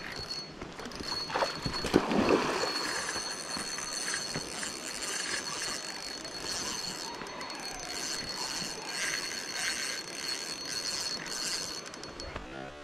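Flowing stream water with a thin, steady high whine running through most of it, and a few knocks about two seconds in.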